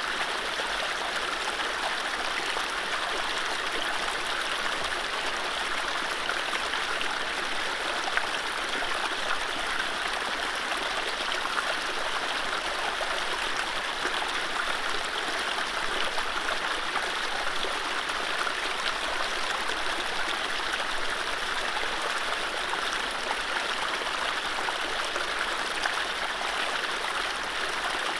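Mountain stream running over low rapids: a steady, even rush of water without birdsong.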